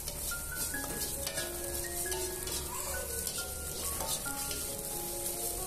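Scrambled eggs sizzling in butter in a wok while a metal spatula scrapes and stirs them, under a soft background melody.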